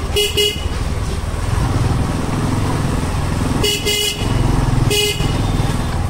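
A vehicle horn honks three short times, once near the start and twice about four and five seconds in, over a steady low rumble of engine and wind.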